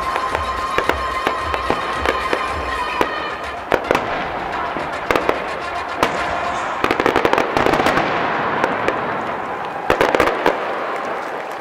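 Aerial fireworks bursting: a string of sharp bangs and crackles, densest about seven and ten seconds in. Show music with a steady beat plays under it for the first few seconds.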